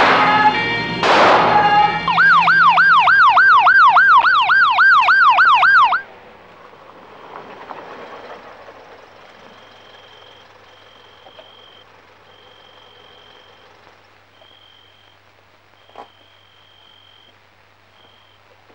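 A siren wailing rapidly up and down, about three times a second, over the tail of dramatic film music. It cuts off suddenly about six seconds in, leaving quiet ambience with short, repeated high chirps and a single sharp click near the end.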